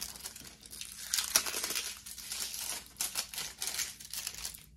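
Crinkling and tearing of packaging as a pack of Cricut iron-on sheets is torn open and handled, a busy crackly rustle that stops shortly before the end.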